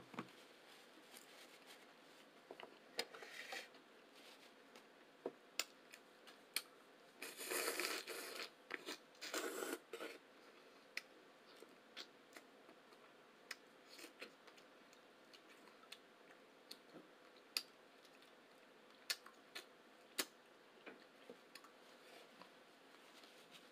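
Faint eating sounds: scattered sharp clicks and smacks, with two louder stretches of chewing about seven to ten seconds in.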